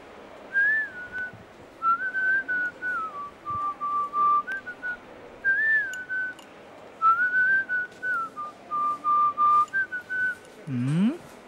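A person whistling a tune, the same melodic phrase played twice, followed near the end by a brief rising swoop.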